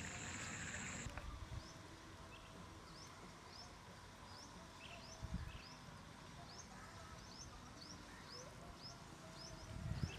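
Faint outdoor ambience: a bird repeating short rising chirps, about one or two a second. A steady high whine stops about a second in, and there is a soft low thud about five seconds in.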